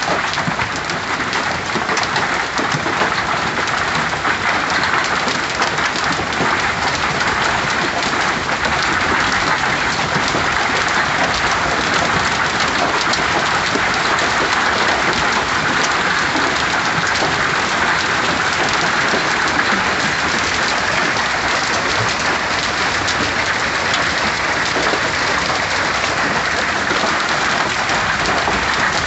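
Hail and rain pelting down steadily, a dense clatter of countless small impacts.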